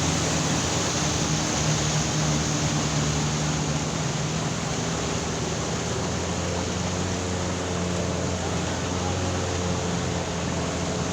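A steady engine hum under an even rushing noise, holding level throughout.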